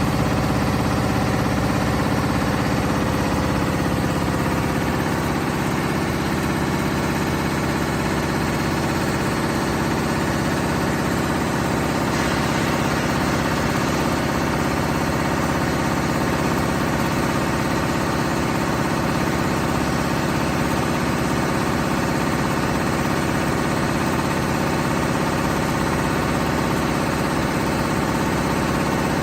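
M Tex high-speed machine running steadily at speed, a continuous mechanical hum with a fast, even pulse.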